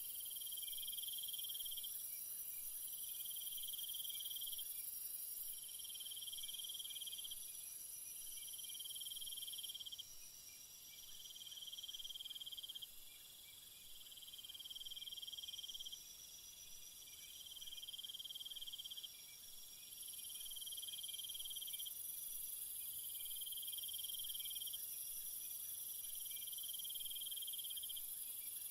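Chorus of insects such as crickets: a high-pitched trill in bouts about two seconds long that repeat every two to three seconds, over a steady high buzz and hiss.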